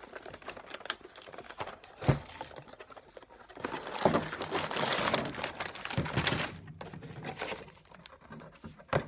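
A cardboard Lego set box being opened and its plastic parts bags crinkling and rustling as they are pulled out onto a table, with scattered clicks, a knock about two seconds in and the busiest rustling in the middle.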